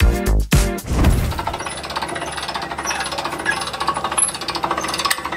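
Music with a beat for about the first second, then a hand-cranked boat trailer winch ratcheting rapidly as its strap winds in, hauling the boat onto the trailer.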